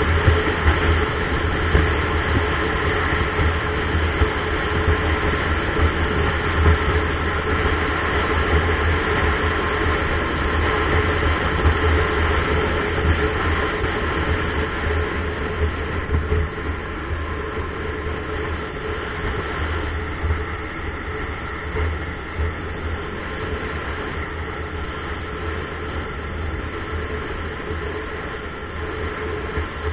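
Steady drone of a vehicle cruising on the open road: engine hum with wind and tyre noise, heard from a camera mounted on the vehicle. It eases off a little about halfway through.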